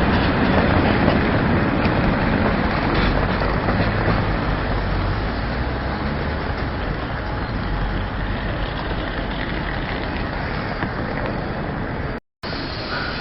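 Train running, a steady rumble that slowly fades as it moves off, cut to silence for a moment near the end.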